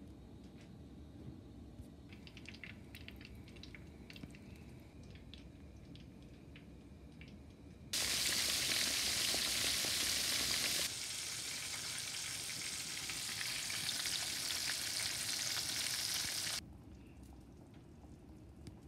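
Flour-and-egg-breaded beef cube steaks frying in shallow oil in a stainless steel pan: a loud, steady sizzle that starts suddenly about eight seconds in and cuts off sharply near the end, with a drop in level partway through. Before it, only faint scattered light taps.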